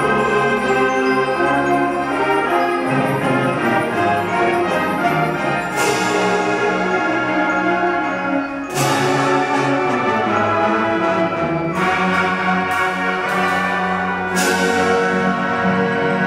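Student concert band playing full, sustained chords on woodwinds and brass, including tubas, with several loud struck percussion accents that ring on in the second half.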